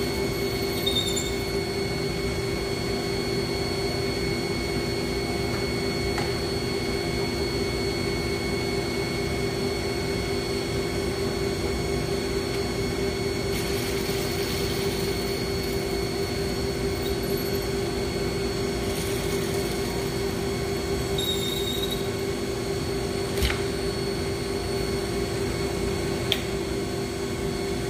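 Bridgeport Series I vertical milling machine running with a steady, even hum from its head, with two sharp clicks late on as its controls are worked.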